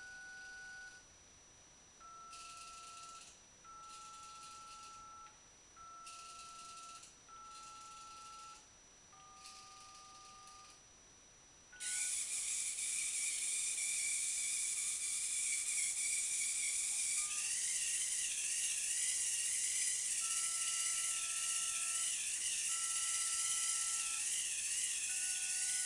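DTMF keypad tones, two pitches sounding together in each tone, played one after another about a second each with short gaps: remote-control commands to the robot. About 12 seconds in, a much louder hiss with a wavering whine starts, the robot's motors driving it, and more DTMF tones sound faintly under it.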